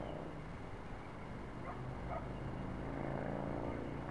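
Steady rushing wind noise on the onboard camera's microphone as it descends under its parachute. A faint pitched sound slowly falls and rises in the background.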